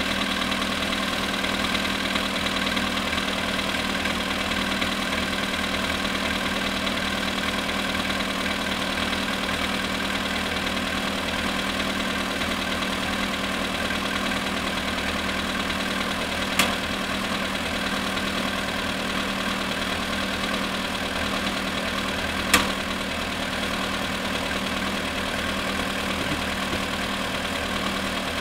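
Volkswagen Polo sedan engine idling steadily in −19 °C frost, with the knock that the owner is recording. Two sharp clicks stand out over it, one about two-thirds of the way in and another about six seconds later.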